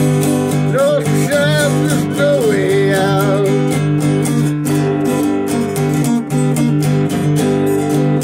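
Acoustic guitar strummed in a steady rhythm, with a harmonica on a neck rack played over it. The harmonica's wavering, bending notes stand out over the chords during the first few seconds.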